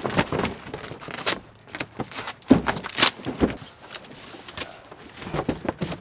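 Large cardboard box being opened by hand without a knife: irregular scraping, rustling and sharp knocks of cardboard, with the plastic packing strap being pulled.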